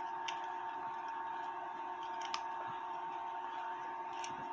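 Three light metal clicks, about two seconds apart, as a Jacobs chuck mounted on a watchmaker's lathe headstock is handled. A steady high-pitched hum runs underneath.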